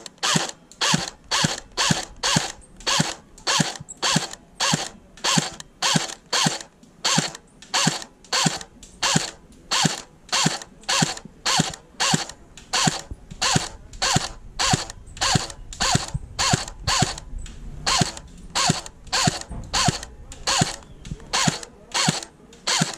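Airsoft hi-capacity magazine being wound by its thumb wheel: short ratcheting bursts, about two a second, even and steady.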